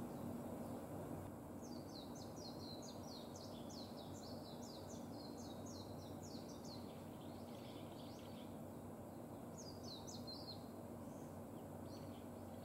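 Japanese white-eye singing: a fast, high twittering run of notes lasting a few seconds, then a short second burst about ten seconds in, over steady low background noise.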